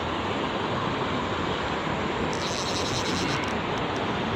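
Steady rushing noise of wind on the microphone and flowing river water, with a faint high crackle for about a second a little past halfway.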